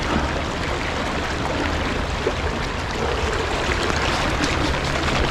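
Steady rush of flowing creek water.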